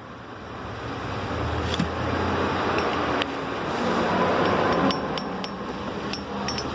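Light metallic clicks and clinks, several scattered single strikes, as a Honda CG Start 160 piston is moved about inside its cylinder. The piston has worn undersize from hard revving and is loose in the bore, so it knocks against the cylinder wall. A steady background noise runs underneath.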